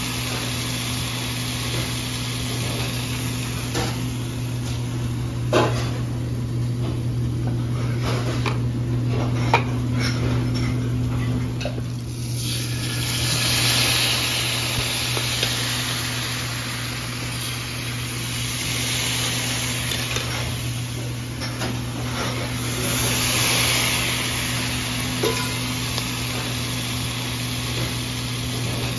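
Commercial kitchen at work: a steady low hum under scattered clinks and knocks of utensils and pans, with a few swells of hiss partway through and near the end.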